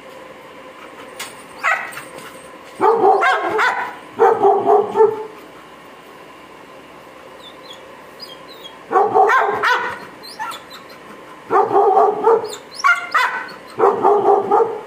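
A dog barking and yelping in several short runs, each about a second long, with a pause of a few seconds in the middle.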